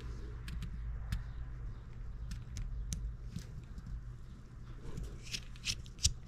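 Small screwdriver blade clicking and scraping in the slot of a tiny screw on a brass steam-engine cylinder end plate as the screw is worked loose. Scattered faint ticks, then from about five seconds in a run of sharper clicks about three a second, over a low steady hum.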